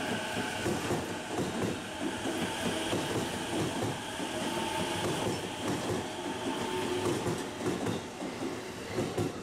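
JR East E233 series 6000 electric commuter train running past a station platform, its wheels clattering on the rails, with a few held tones over the noise until the last car goes by.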